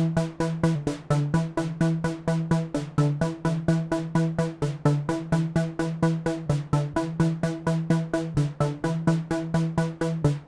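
Korg modwave wavetable synthesizer playing a preset as a fast, steady pulse of short repeated notes, a looping sequenced pattern with a strong low note and electronic, techno-like character.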